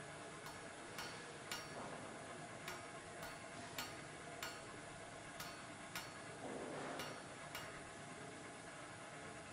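Faint sharp ticks, spaced about half a second to a second apart and not quite even, over a steady low hiss.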